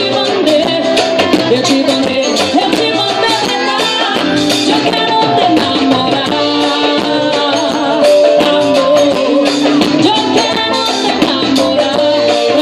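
Live samba-reggae band playing through the PA: singing over electric guitar, bass, keyboards, drum kit and hand drums, with a steady percussion groove.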